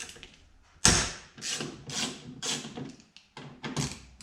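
Ratchet with a T30 Torx bit working on the door lock actuator's bolts: a sharp metallic snap about a second in, then short ratcheting strokes about twice a second.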